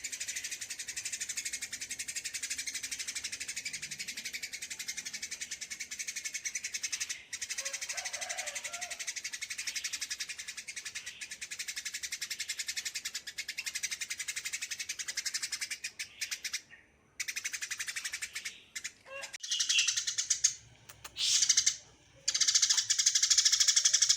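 Small songbirds chirping in a rapid, continuous high chatter that breaks up about sixteen seconds in, then returns in louder bursts near the end.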